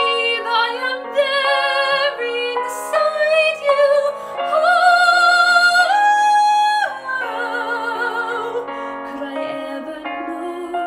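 A woman singing in a classical, operatic style over piano accompaniment. She holds a loud high note with vibrato from about four and a half seconds in, then her line falls lower.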